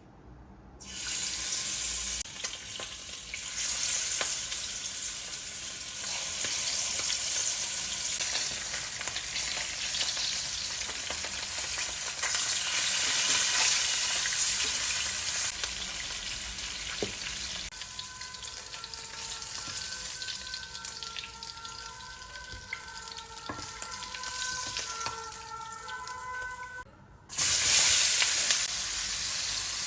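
Food frying in hot oil in a pan, a steady sizzle. It breaks off briefly near the end and comes back louder.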